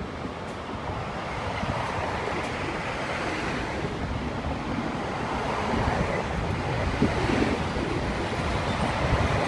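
Road traffic noise from vehicles passing on the road, mixed with wind buffeting the phone's microphone, growing slowly louder.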